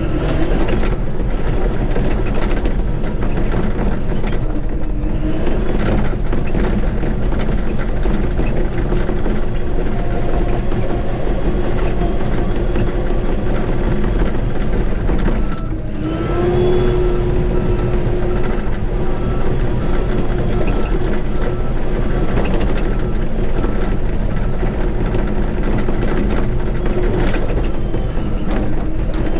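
Shantui bulldozer's diesel engine running steadily under load while it pushes dirt. It dips briefly about halfway through, then picks back up.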